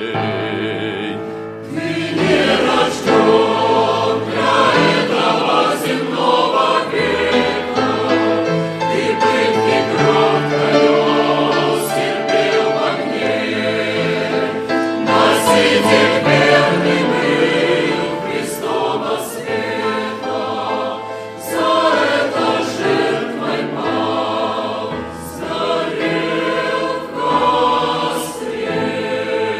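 Church choir singing a slow Russian-language hymn in long, held phrases.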